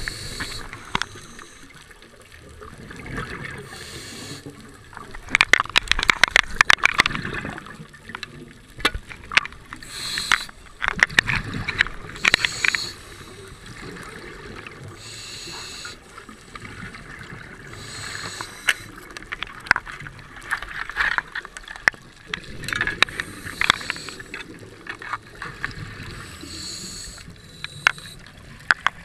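Scuba regulator breathing underwater: bubbling exhalations and hissy inhalations every few seconds, with crackling clicks from the bubbles.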